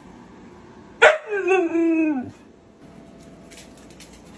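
A husky gives one drawn-out, wavering howl-like whine about a second in, dropping in pitch at the end. Faint clicks follow.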